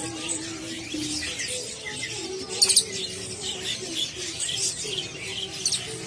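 Many caged songbirds chirping and twittering at once, with a louder cluster of chirps about two and a half seconds in.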